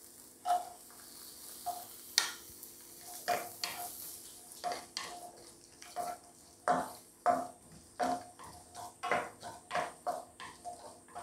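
Wooden spatula stirring coconut pieces frying in coconut oil in a non-stick pan: short scraping strokes against the pan over a light sizzle. The strokes come quicker in the second half, about two or three a second.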